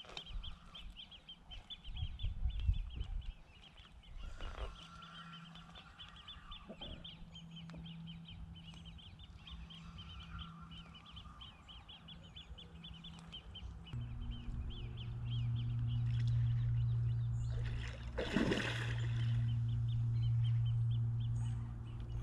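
Waterfowl calling over a fast, steady high chirring. About fourteen seconds in, a steady low hum starts and becomes the loudest sound, with a brief loud rush a few seconds later.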